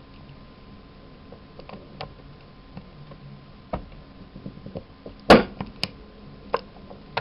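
Punch-down tool seating UTP cable wires into a network jack: a few light clicks and taps, then one loud sharp snap of the spring-loaded tool firing about five seconds in, followed by a few smaller clicks.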